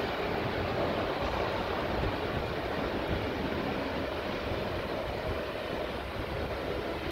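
Vintage passenger coaches rolling past on the rails, a steady rumbling rush of wheel and track noise that eases a little near the end as the last coach goes by.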